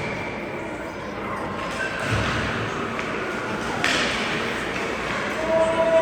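Ice hockey rink ambience: background voices, with a sharp knock about four seconds in, like a puck or stick hitting the boards. A steady tone starts near the end.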